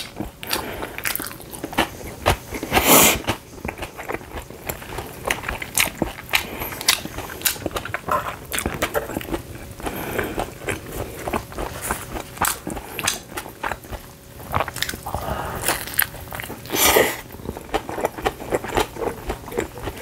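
Close-up mouth sounds of a person eating pizza: chewing and biting, with many small wet smacks and clicks. Two louder moments come about three seconds in and near the end.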